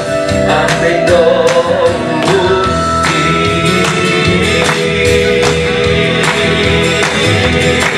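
Gospel song accompaniment playing between sung lines, with sustained instrumental tones over a steady beat.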